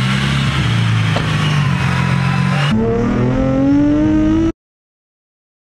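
Supercharged Infiniti G35 coupe's V6 engine running loud and steady for a few seconds, then after a cut the engine pulling hard from inside the cabin, its pitch climbing as it accelerates. The sound stops dead about a second before the end.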